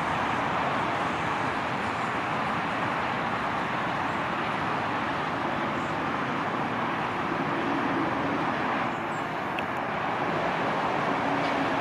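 Steady road traffic noise: a continuous hum of cars and trucks going by.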